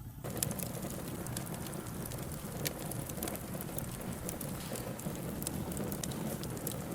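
Burning wood crackling: a steady hiss dotted with many sharp, irregular snaps, which cuts in suddenly at the start and cuts out at the end.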